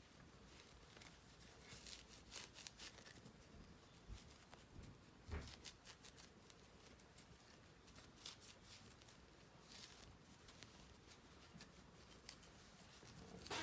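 Faint rubbing and handling of a metal sonic screwdriver prop being polished with a Cape Cod polishing cloth, with a few light clicks.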